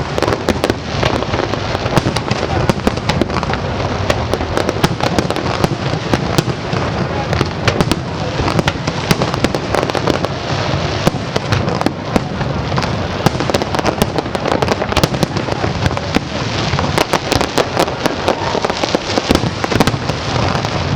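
Aerial fireworks display going off in a dense, continuous barrage: many sharp bangs and crackles in quick succession over a steady rumble, with no pause.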